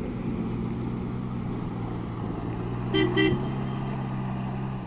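SUV engine held at steady revs while towing, with two short car-horn toots about three seconds in.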